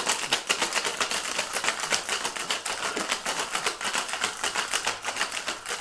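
Ice cubes rattling inside a sealed tin-on-tin cocktail shaker shaken hard, a fast, even clatter. The shaking chills the drink with the ice.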